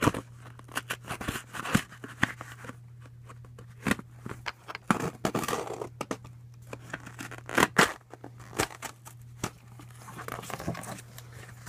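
Cereal-box cardboard being pulled and torn by hand: irregular rips, crinkles and sharp clicks, over a steady low hum.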